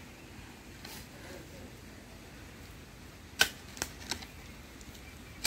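Quiet background with a few sharp clicks or knocks: a faint one about a second in, then a loud one about three and a half seconds in, followed within half a second by two weaker ones.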